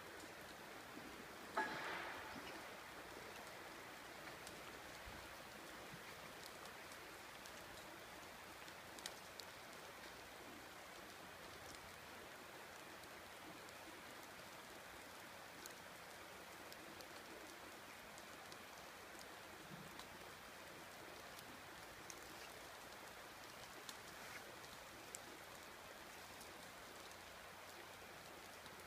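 Light rain falling, a faint even hiss with scattered small drop ticks. A brief louder sound comes about two seconds in.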